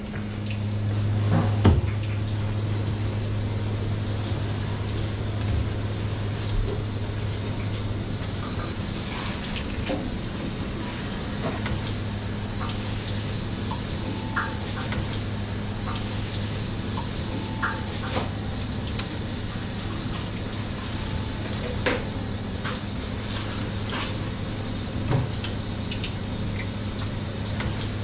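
Tap water running steadily from a sprayer onto a plastic cutting board, with scattered sharp clicks and taps of a knife on the board as an eel is filleted, over a steady low hum.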